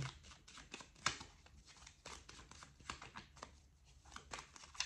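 A deck of tarot cards being shuffled and handled to draw a card: a run of light, irregular clicks and flicks, with sharper snaps about a second in and near the end.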